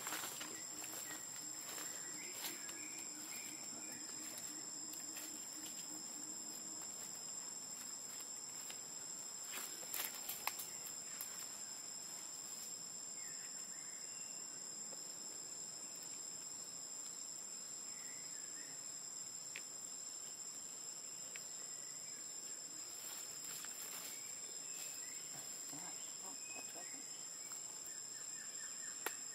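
Steady high-pitched drone of insects, two unbroken tones, with a few faint clicks about ten seconds in.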